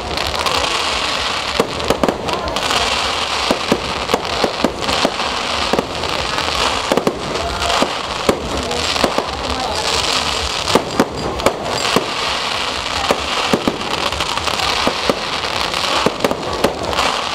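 Aerial fireworks going off in quick succession: a dense crackle from bursting shells, with many sharp pops and occasional louder bangs.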